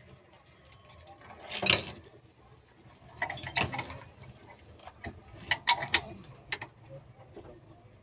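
A series of knocks and clanks, in clusters about a second and a half in, around three and a half seconds, and near six seconds.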